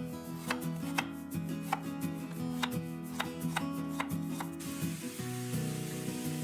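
Knife chopping on a cutting board, sharp knocks about three a second, over soft background music. About four and a half seconds in the chopping stops and food sizzling in a hot pan takes over.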